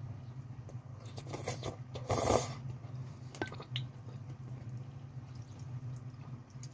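A person eating noodles: one short, loud slurp about two seconds in, with smaller wet chewing and mouth clicks around it, over a steady low hum.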